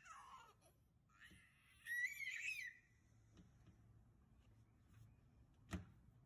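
A toddler's brief high, wavering squeal about two seconds in, then a single sharp knock near the end.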